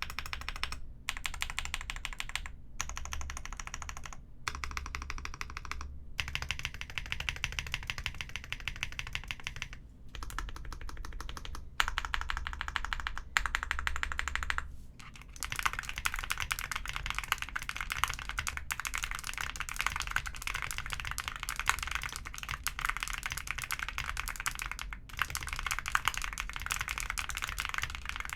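Mechanical keyboard being typed on fast: a Chaosera Heracles80 with Azure Dragon V2 switches and case, plate and switch-pad foam, giving a dense stream of key clacks. For about the first fifteen seconds the typing comes in short runs broken by brief pauses, then it goes on without a break.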